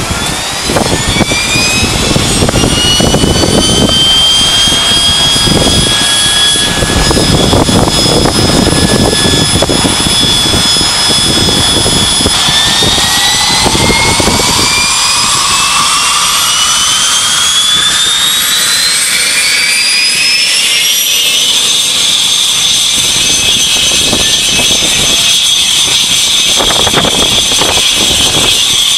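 AgustaWestland AW119 Koala's single turboshaft engine spooling up during start-up: a whine that rises over the first few seconds and holds steady, then climbs again in a long rise from about twelve seconds in and levels off a few seconds before the end. Wind buffets the microphone, mostly in the first half.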